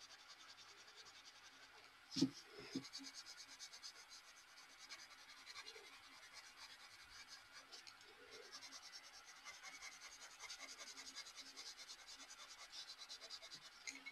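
Faint scratching of a colored pencil on paper as it shades in quick back-and-forth strokes, with a soft knock about two seconds in.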